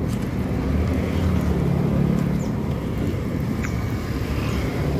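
Road traffic running past, a steady low engine rumble that swells as a vehicle goes by between about one and three seconds in.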